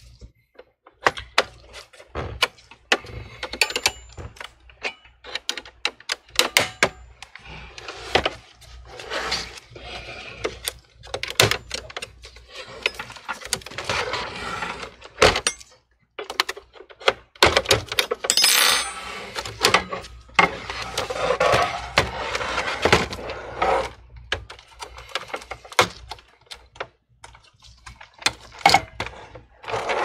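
Metal pry tool working around the edge of an all-in-one PC's LCD panel to free it from its frame: many sharp clicks and snaps, with stretches of scraping and rubbing in between.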